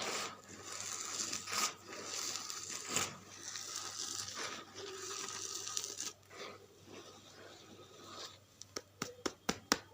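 Dry charcoal crunching and crumbling, a dense crackle for about six seconds. It then goes quieter, and near the end comes a quick series of separate sharp clicks.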